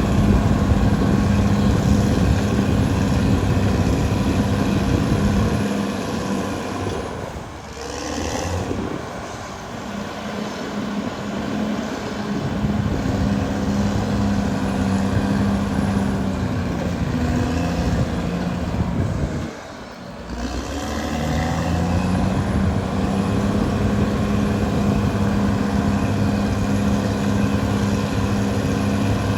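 Caterpillar D6R XL bulldozer's diesel engine running under load, easing off twice, about a quarter of the way in and again past the middle, then picking up speed again.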